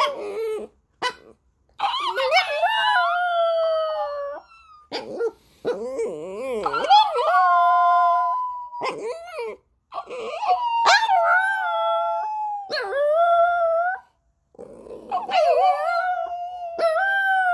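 Small dog howling: a series of about five long howls, some held steady and some wavering in pitch, with short breaks for breath between them.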